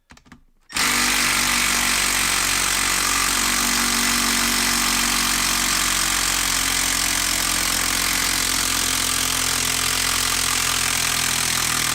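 Milwaukee 12-volt brushed subcompact impact driver hammering continuously on a Timberlok screw that is stuck and will not back out. It starts about a second in and runs at a steady level.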